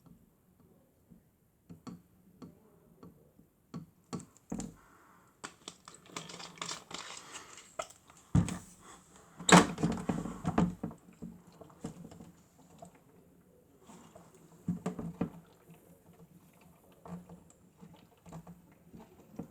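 Irregular plastic clicks, taps and rustling from a toy washing machine being handled, with a dull thud about eight seconds in and a louder clatter just after.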